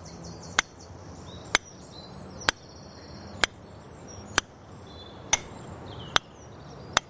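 Hand hammer striking the head of a steel rock drill held against stone, boring a hole by hand for splitting the rock with plugs and feathers: sharp single strikes about once a second, eight in all. High chirping runs faintly in the background.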